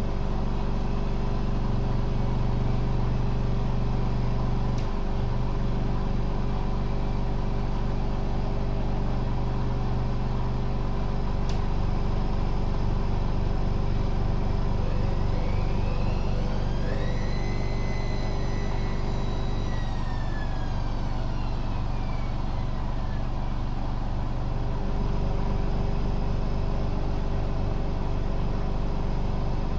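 Hoover Dynamic Next washing machine on a 1600 rpm spin-only cycle, its motor and drum running with a steady hum. A couple of light clicks come early on. About halfway through, a high whine rises, holds for a few seconds, then falls away.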